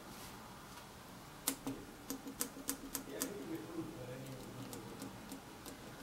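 Faint clicks of the espresso machine's PID control push-buttons being pressed repeatedly to step through and set the temperatures. They come as an irregular run, a few a second, starting about a second and a half in and growing fainter after the middle.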